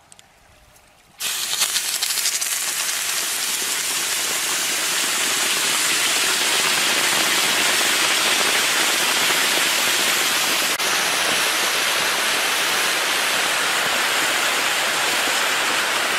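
Hot stone boiling soup in a deer-hide pot: the heated rock sizzles and hisses as the broth boils and froths around it. The steady hiss starts suddenly about a second in.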